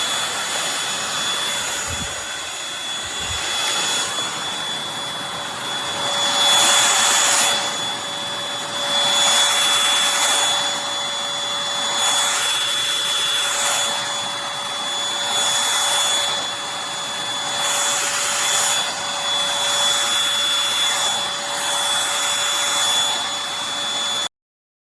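Eureka NES215A Blaze stick vacuum running: a steady motor whine over a rushing airflow that swells and fades every two to three seconds. It cuts off abruptly near the end.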